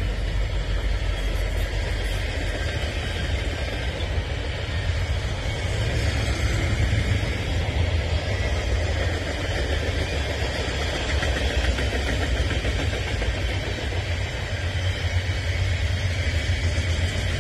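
Freight train cars rolling past, a steady low rumble.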